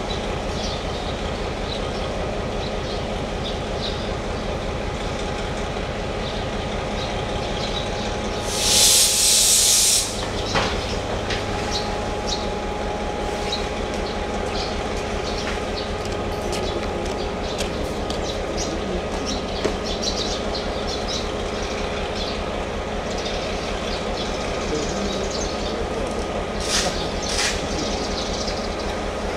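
Diesel-hauled train standing at a platform, a steady low idling hum. About nine seconds in, a loud hiss of released compressed air lasts about a second and a half, with two short hisses near the end.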